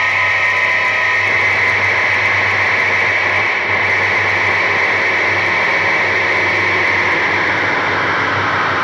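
Harsh noise: a loud, steady wall of electronic static, its hiss strongest in a high band over a low hum. Near the end the hiss drops lower in pitch.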